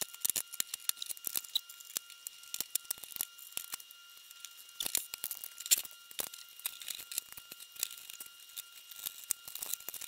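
Irregular light clicks, taps and rustles of hands handling computer motherboards, a metal computer chassis and a ribbon cable, with a few louder clicks around five to six seconds in.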